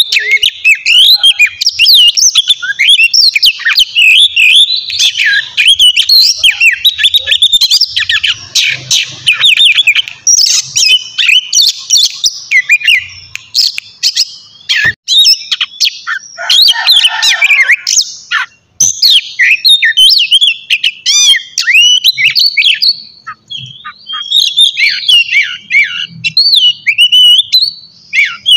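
Oriental magpie-robin (kacer) singing loudly and almost without pause: a fast, varied run of whistles, chirps and trills.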